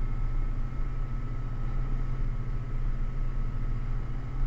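Diesel engine of a heavily loaded rock truck (haul truck) running steadily, heard from inside the cab as an even low drone with a faint steady whine over it.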